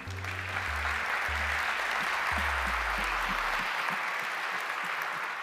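Audience applauding: a dense, steady wash of clapping.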